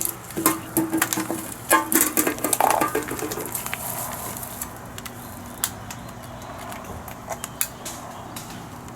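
Metal clinks and rattles with crunching as a bee smoker is handled and packed with fuel, busiest over the first three seconds or so, then only a few scattered clicks over a faint steady low hum.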